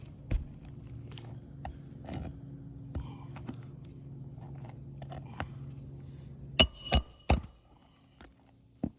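A hammer driving roofing nails into asphalt shingles: scattered light taps, then three sharp, ringing strikes in quick succession about two-thirds of the way through. A steady low hum runs underneath and stops shortly after the strikes.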